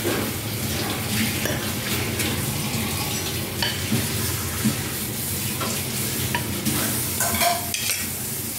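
Tamarind gravy with lentil dumplings simmering in an aluminium pot on a gas burner: a steady bubbling hiss, with a few light metal clicks from the pot.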